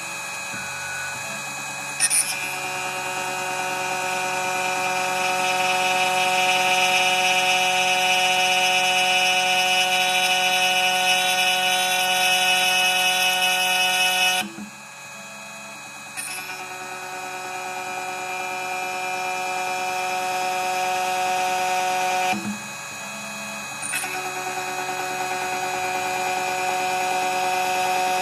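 CNC key cutting machine's motor-driven cutter running with a steady high whine as it mills dimples into a key blank. The whine swells, then drops away twice for a second or two, about halfway through and again about three-quarters through, before starting up again.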